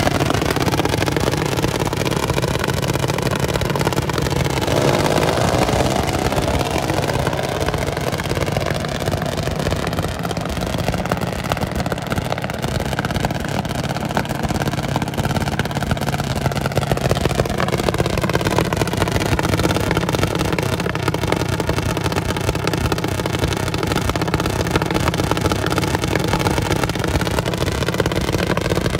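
Junior dragster's single-cylinder engine idling steadily, with no revving.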